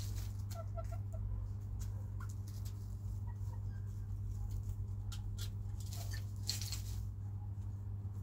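Chickens clucking softly a few times, mostly in the first second or so, over scattered sharp clicks and scratches of pecking and movement. A steady low hum runs underneath.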